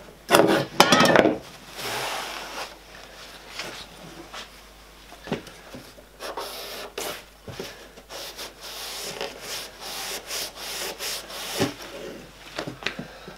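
Plywood sled pieces being handled, pressed together and rubbed on a plywood workbench while being glued: uneven rubbing and scraping with light knocks, loudest about a second in.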